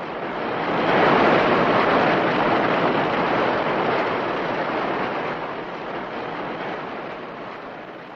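A long rushing noise, like surf or wind, with no pitch to it. It swells about a second in, then slowly dies away over several seconds.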